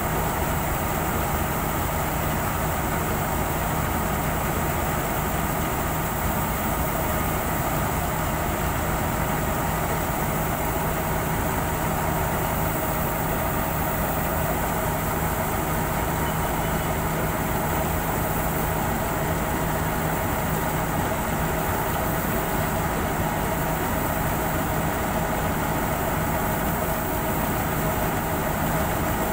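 Balkar B-525 combine harvester running steadily as it unloads paddy grain through its unloading auger, an even, unbroken machine drone with steady hum tones.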